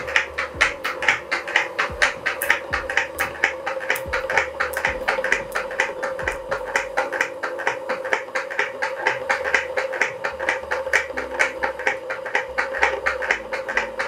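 Washing-machine motor driving a homemade piston water pump through an eccentric wheel and connecting rod: a steady hum with a rapid, even knocking at each back-and-forth stroke. The knocking is a terrible noise from play in the improvised hinge, a solid bar fitted loosely inside a tube, which bangs as it moves.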